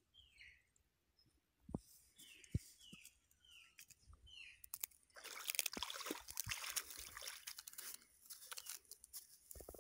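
Cast net being dragged through shallow water and up over wet sand, a rough scraping, splashing hiss with crackles that starts about halfway through and lasts about four seconds. Before it, a few short high falling chirps.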